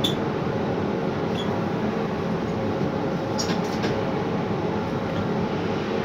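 Hot metal crane running, heard from inside the operator's cabin: a steady machinery noise with a faint hum. A few light clicks come about three and a half seconds in.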